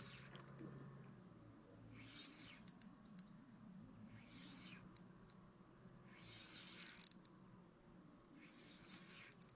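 Faint clicks and hushed swishes from a spinning reel and rod while a hooked fish is being played on a bent rod; the swishes come about every two seconds, with small clusters of sharp clicks.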